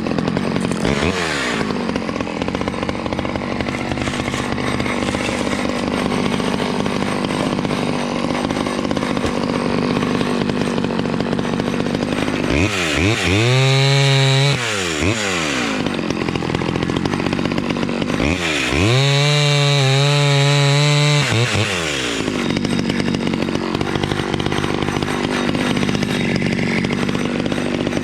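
Small two-stroke Stihl 011 chainsaw cutting wood under load. Twice it revs up to a high, steady whine for two to three seconds at full throttle, then drops back.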